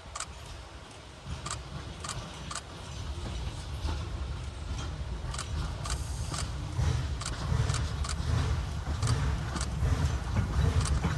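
A train pulled by a replica steam locomotive approaching: a low rumble growing steadily louder, with sharp metallic clicks every half second or so.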